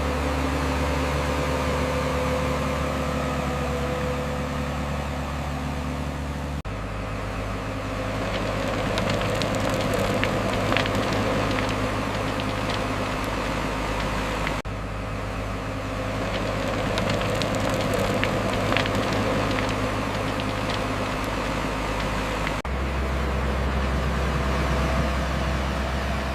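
Heavy diesel construction machinery running steadily, a deep engine drone with a noisy clatter above it. The pitch and mix change abruptly every eight seconds or so, as if separate recordings were cut together.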